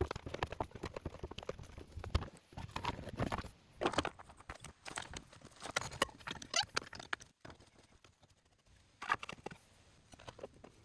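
Irregular clicks, knocks and clatter of hard objects being handled, with a quieter pause a little past the middle.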